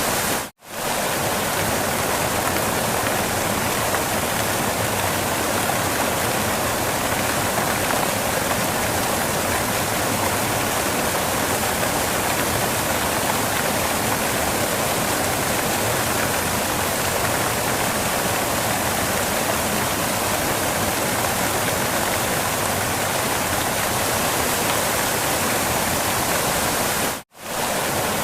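Waterfall: a steady rush of falling water, broken twice by a sudden split-second dropout to silence, just after the start and about a second before the end.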